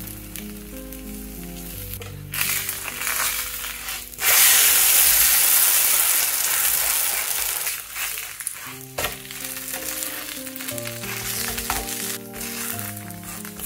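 Butter and oil sizzling in a cast-iron skillet as a buttered green onion flatbread is flipped over about four seconds in; the frying jumps much louder for a few seconds, then settles back to a steady sizzle.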